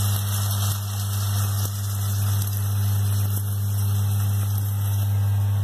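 Steady low hum with a constant hiss, and a few faint ticks and scrapes of a silicone spatula stirring chicken pieces in a nonstick wok.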